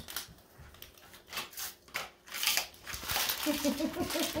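Husky chewing a piece of dried cod, with a run of crisp crunching clicks. Near the end comes a low, wavering, voice-like sound that pulses several times a second.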